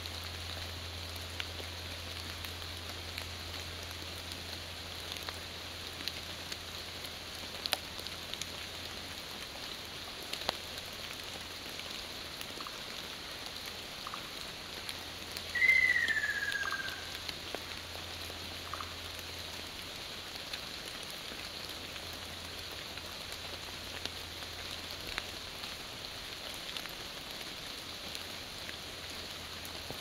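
Ruddy kingfisher giving its rolling 'kyororo' call once, about halfway through, a falling whistle lasting about a second and a half. Under it, a steady hiss with scattered faint ticks.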